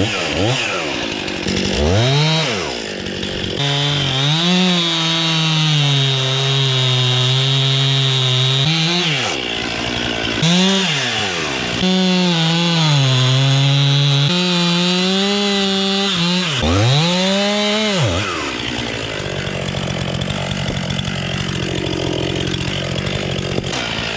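Gas chainsaw cutting a face cut into a tree trunk. The engine pitch sags and holds through several cuts, with the revs rising and falling between them. Near the end the saw settles back to idle.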